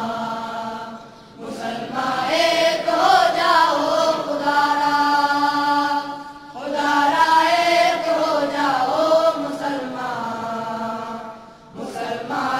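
Devotional chanting: a voice sings long, drawn-out melodic phrases of about five seconds each, with a short breath-like break between them.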